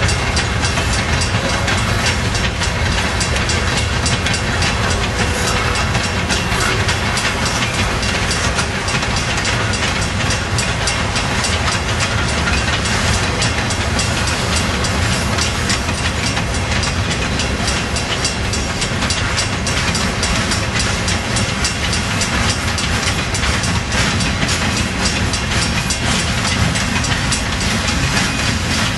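Freight train cars (covered hoppers and boxcars) rolling steadily past: the loud, continuous running noise of steel wheels on the rails.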